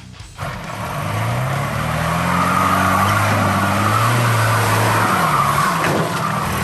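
Off-road 4x4 truck's engine revving hard under load, rising in pitch over the first couple of seconds and then held, as its tyres churn through a water-filled mud bog with a steady rush of splashing water. The revs drop about five seconds in.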